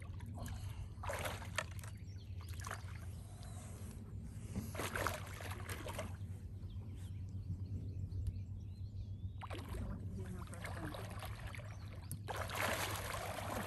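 Lake water sloshing and splashing in several separate bursts as people move about in it, over a steady low hum.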